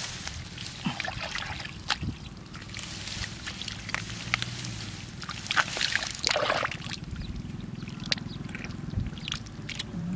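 Hands sloshing and splashing in shallow muddy water, with irregular small splashes and scattered clicks of wet mud and stalks being pushed aside.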